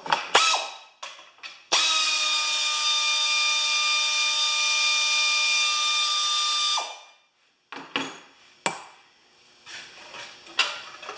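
A handheld power drill runs at a steady pitch for about five seconds, then winds down. A few short clicks and knocks come before and after it.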